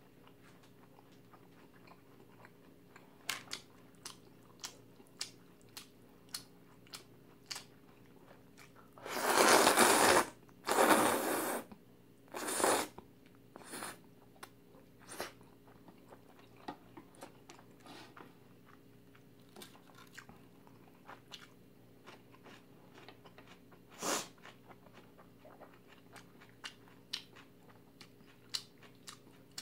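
Close-up mouth sounds of a person eating jjajangmyeon: steady wet chewing clicks throughout. About a third of the way in come loud noodle slurps, two long ones followed by a shorter one, and one more slurp comes later.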